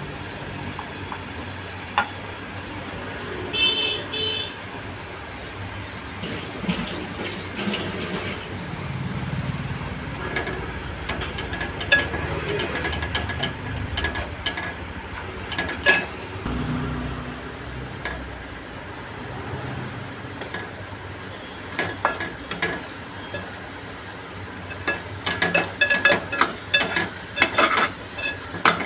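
Onions and tomatoes frying in oil in an aluminium pressure-cooker pot, with a metal spatula scraping and clinking against the pot now and then and stirring fast near the end. A brief high toot sounds about four seconds in.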